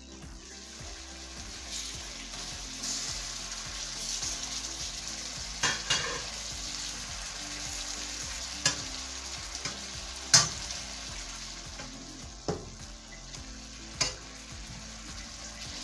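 Tomato masala sizzling in a little oil in a nonstick wok while it is fried down and stirred with a spatula, which knocks against the pan about six times, the loudest just past the middle.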